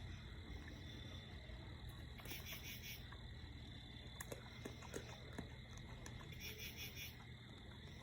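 Faint night chorus: a short pulsed trill repeats about every four to five seconds over low steady background noise, with a few faint clicks near the middle.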